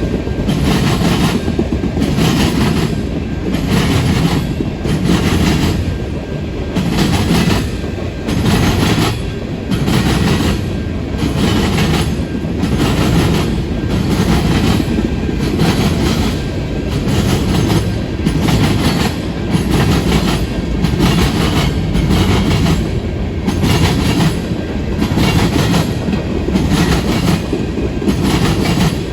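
Manifest freight train's cars rolling past at track speed, steel wheels clicking over the rail joints in a steady repeating clatter with a low rumble underneath.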